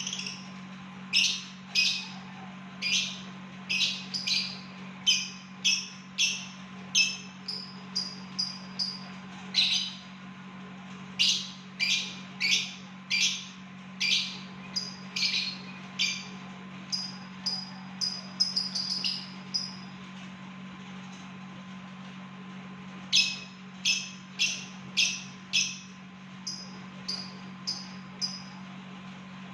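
Lovebird giving strings of short, sharp chirps, about one or two a second, in the quick 'ngetik' style, with softer high chirps between them and a pause of a few seconds in the middle. A steady low electrical hum runs underneath.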